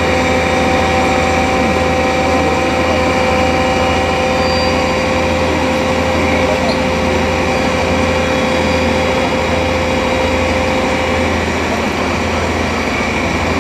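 Turntable ladder fire truck's diesel engine running steadily to drive the ladder hydraulics, with a steady whine over a low drone. The whine stops near the end.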